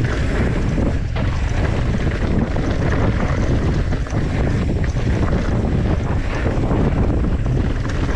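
Wind buffeting the camera microphone at speed, over the crunch and chatter of a mountain bike's knobby tyres rolling fast over loose dirt and gravel on a downhill trail.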